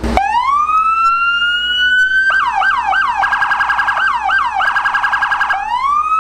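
Police car electronic siren on a Dodge Charger, very loud: a rising wail that switches about two seconds in to a rapid up-and-down yelp, then starts climbing into a wail again near the end.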